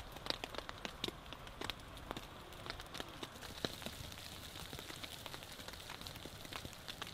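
Rain and wet snow pattering on a tarp roof overhead: scattered, irregular drops tapping over a faint steady hiss.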